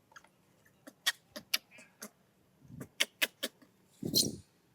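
A baby monkey crying in short squalls, the loudest about four seconds in, among a run of sharp clicks.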